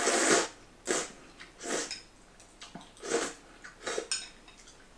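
A person slurping udon noodles and broth from a bowl held to the mouth: about five short slurps over a few seconds, the first one the longest.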